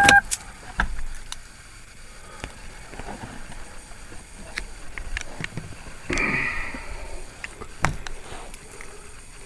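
Handling noise inside a vehicle cab: a short electronic dashboard chime cuts off right at the start, then scattered clicks and knocks with a brief rustle, and a door being worked near the end.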